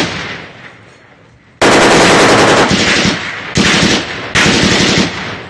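Loud automatic gunfire in bursts: a long burst of about a second and a half, then two shorter bursts close together. At the start the echo of an earlier burst is dying away.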